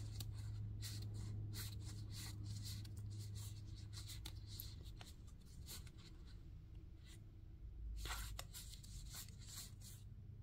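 Unsleeved game cards being flipped through by hand: soft irregular slides and flicks of card against card as they are passed one by one from a held stack, a little busier about eight seconds in. A steady low hum runs underneath.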